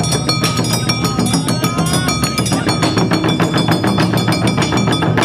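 Awa Odori taiko ensemble: several shoulder-slung barrel drums beaten in a fast, driving rhythm, with a steady metallic ringing over the drumming.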